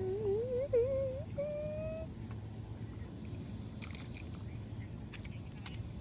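A person humming a short wavering tune for about two seconds, the pitch wobbling and creeping upward, over a steady low background drone with a few faint clicks later on.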